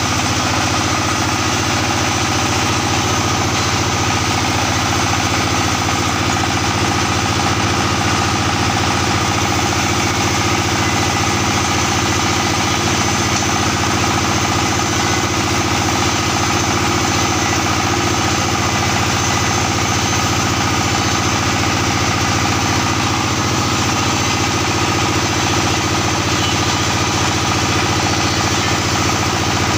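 Horizontal single-cylinder diesel engine of a mortar plastering machine running steadily, belt-driving the pump.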